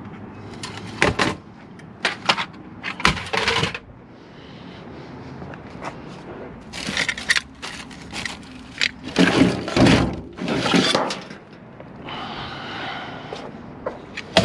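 Metal-cased electronic equipment being handled and set down: a string of sharp knocks and clanks in the first few seconds, a longer burst of rattling and banging around the middle, and one more hit at the end.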